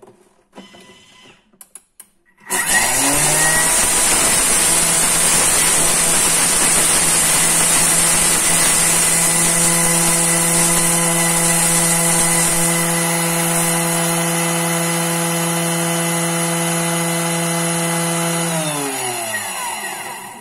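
Electric grinder grinding dried chickpeas into flour: the motor starts suddenly a couple of seconds in, runs up to speed with a steady whine for about sixteen seconds, then winds down with falling pitch near the end. A few faint knocks of handling come before it starts.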